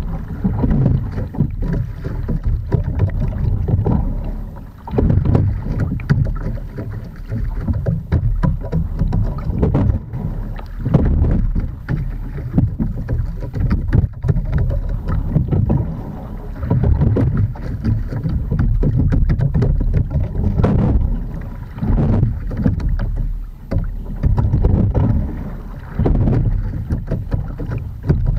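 Edon TS515 single scull being rowed: oar and sliding-seat noise with water sounds that swell with each stroke, about every two and a half seconds, and a few sharp knocks.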